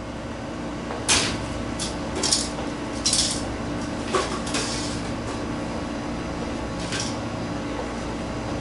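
Dishes and cutlery clattering in a restaurant kitchen: a run of sharp knocks and clinks in the first half, then one more clink near the end, over a steady low hum.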